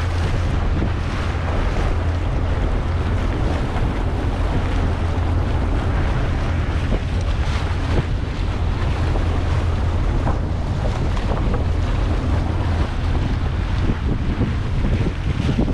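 Wind buffeting the microphone on a moving boat, with water washing against the hull over a steady low rumble.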